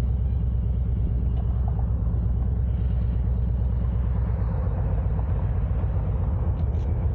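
Steady low rumble of a moving vehicle, with road and wind noise on a windsock-covered external microphone. The deepest part of the rumble shifts about four seconds in.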